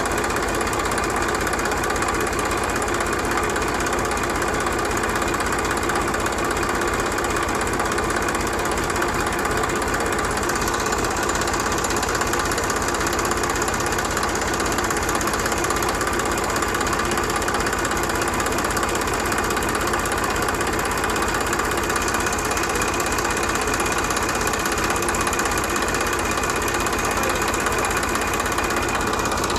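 Small motor of a miniature model tractor running steadily, with a fast even chugging and a steady whine.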